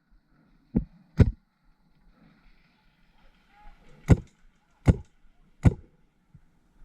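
Paintball marker firing five single shots, each a sharp pop: two close together about a second in, then three more, evenly spaced under a second apart, from about four seconds in.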